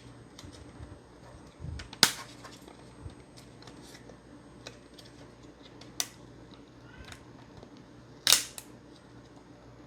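Plastic clicks and knocks from the Xbox One S power supply's snap-fit plastic case being worked back together. There are a few sharp clicks, the loudest about two, six and eight seconds in, among lighter ticks of handling.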